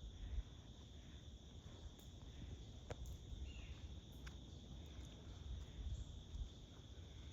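Faint, steady high-pitched insect chorus over a low rumble of outdoor ambience, with a few small clicks and one short falling chirp partway through.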